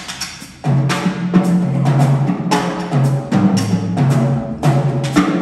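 Student jazz big band playing live, with saxophones, piano, upright bass and sharp percussive strokes. The sound drops briefly in the first half second, then the full band comes back in with punchy accented hits.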